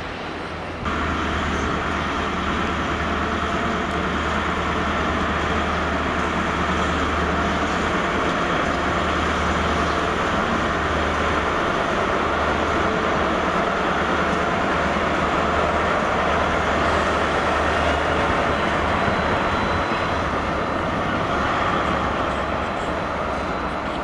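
First Great Western HST (InterCity 125) power car 43190 moving past, its MTU diesel engine running with a steady low hum over the rumble of the train. The sound steps up about a second in and then holds steady.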